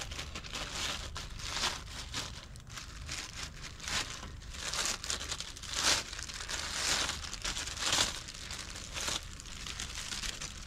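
Thin clear plastic bag crinkling as a rifle is worked out of it, in a run of irregular swishes, loudest around the middle.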